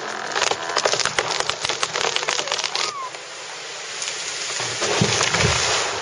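Falling old-growth Sitka spruce: branches snapping in a dense run of cracks, then a swelling rush of falling limbs and debris with a couple of low thuds about five seconds in, before it dies away.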